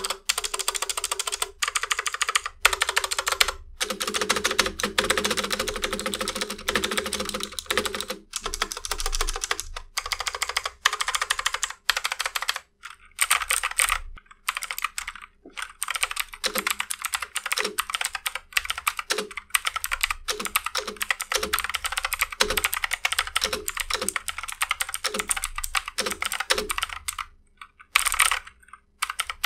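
Armageddon MKA 2C Pro mechanical keyboard with blue switches being typed on steadily in fast runs of sharp clicky keystrokes, broken by a few short pauses. From about halfway through, deeper separate thocks come in among the clicks. This is the stock board with unmodified stabilizers, which the typist calls very scratchy.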